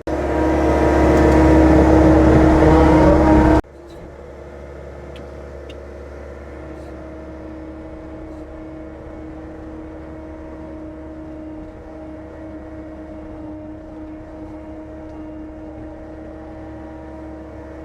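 John Deere 325G compact track loader's diesel engine running. It is loud for the first three and a half seconds, then drops off suddenly to a quieter, steady engine note.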